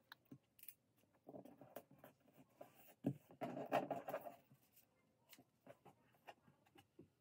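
Faint rustling and scraping of paper pattern pieces as hands slide and press them together on a table to tape them, with scattered small taps and clicks.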